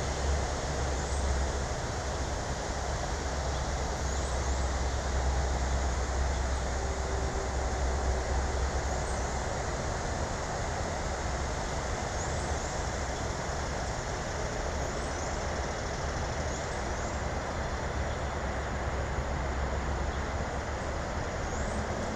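Steady low rumble and hiss, with faint short high chirps from small birds every few seconds.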